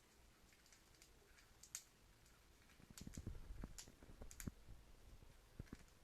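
Faint scattered clicks and soft taps, thickest between about three and four and a half seconds in.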